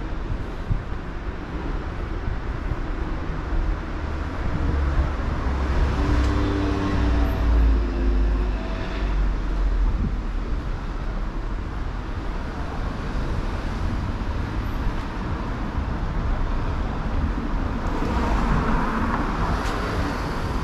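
City street traffic: motor vehicles passing, with a heavier engine rumble swelling about six to ten seconds in and another vehicle going by near the end.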